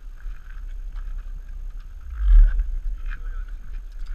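Footsteps crunching on a gravel platform, with a low wind rumble on the microphone that swells into a louder gust about two seconds in.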